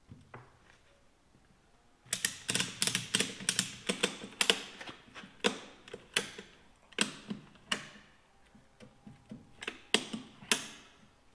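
Metal clicking and knocking as a Centurion tank's clutch assembly, hung on its lifting jig, is handled and moved. It starts with a quick run of clicks about two seconds in, then thins out to single clicks every half second to a second.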